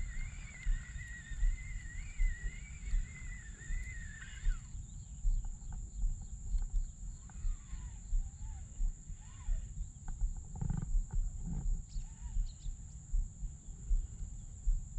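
Wind buffeting the microphone in uneven gusts. A wavering whistle-like tone runs through the first four seconds or so, and a few short chirps come later, over a steady faint high whine.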